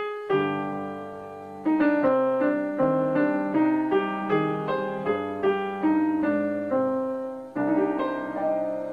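Piano music: a gentle melody of single struck notes, about two to three a second, after a held chord about a second in, with a fresh chord struck near the end.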